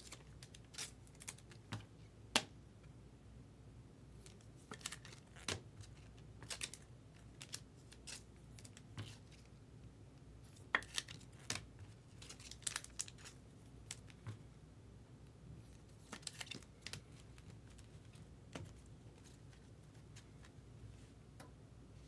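Trading cards being handled and slid into rigid plastic toploaders: scattered light clicks, taps and brief plastic rustles.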